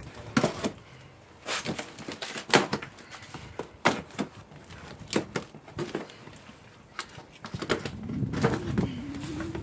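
A cardboard shipping box being opened by hand: about a dozen sharp rips and crackles of packing tape and cardboard flaps, followed by a longer rasping stretch near the end.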